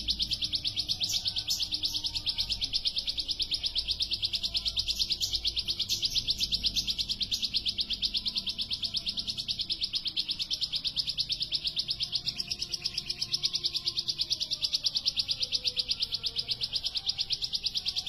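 Bar-winged prinia (ciblek) singing one long, unbroken rapid trill of high notes, pulsing several times a second: the continuous 'ngebren' song style prized by songbird keepers.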